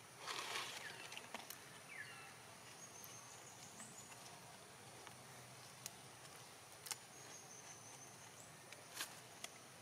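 Quiet outdoor background with a brief rustle about half a second in, a short falling chirp around two seconds, faint high chirps and a few sharp clicks.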